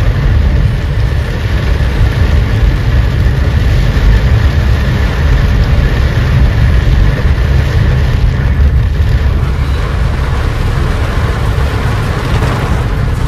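Heavy rain pounding on a moving car's roof and windscreen, heard from inside the cabin, over a loud, steady low rumble of the car on the waterlogged road.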